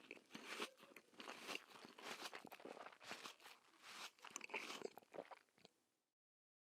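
A person chewing crunchy food close up: a quick, irregular run of wet crunches that stops short about six seconds in.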